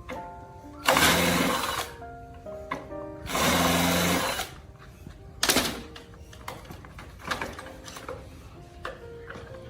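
Background music with steady held notes, broken by two loud bursts of harsh, machine-like noise about a second each and a shorter sharp burst about halfway through, with scattered clicks.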